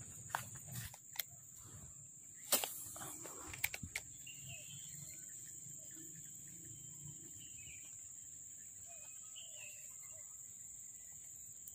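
Steady high-pitched insect drone from crickets or cicadas. A few sharp clicks and knocks fall in the first few seconds, and faint bird chirps come twice later on.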